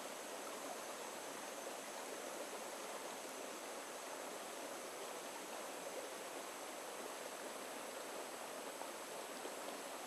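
Shallow rocky stream running steadily over and around stones, an even rushing and trickling with no breaks.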